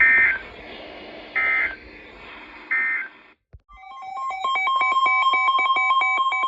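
Emergency Alert System end-of-message data bursts: three short, shrill digital chirps about a second and a half apart, closing a weather warning. After a brief break, a new alert starts with a steady, piercing single-pitch alarm tone overlaid with rapid electronic beeping, the NOAA Weather Radio warning alarm ahead of a tornado warning.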